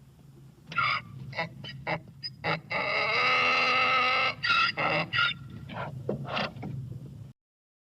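Waterfowl calling: a run of short honking calls, one long drawn-out call in the middle, then more short honks.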